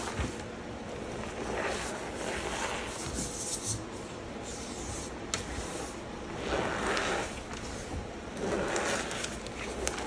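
Hands pressing and kneading a thick layer of cornstarch over crumbled gym chalk: soft scraping, crunching rubs in slow swells a few seconds apart, with a few sharp ticks.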